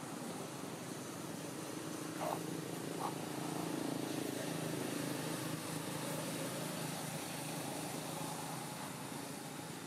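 Steady outdoor hum of distant motor traffic that swells in the middle as a vehicle passes, with two short, high squeaks about two and three seconds in.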